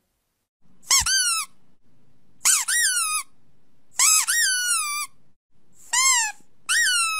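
Puppy whimpering: five high whines, each sliding quickly up and then down in pitch, the last held longer at a steady pitch.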